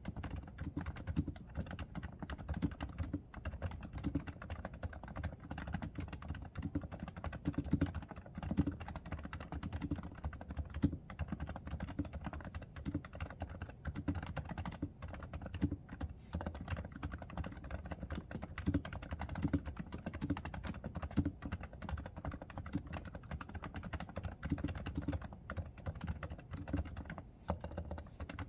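Continuous typing on a Realforce R2 keyboard with silent 30 g Topre electrostatic capacitive switches: a steady, dense stream of muted keystrokes.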